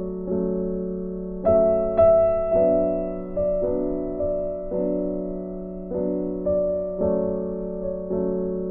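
Background music on piano or electric keyboard: soft sustained chords struck one after another, about one to two a second, each fading before the next, over a held low note.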